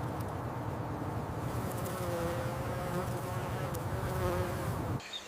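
Bee buzzing, a steady drone with a faintly wavering pitch that cuts off abruptly near the end.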